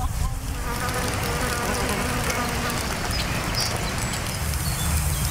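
A flying insect buzzing, a faint wavering hum over a steady outdoor hiss that grows brighter near the end.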